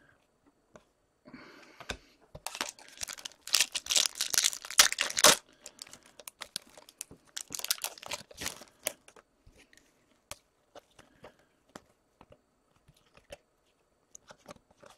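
Hockey card pack wrapper being torn open and crinkled, loudest from about two and a half to five seconds in. Lighter crinkles and clicks follow as the wrapper and cards are handled.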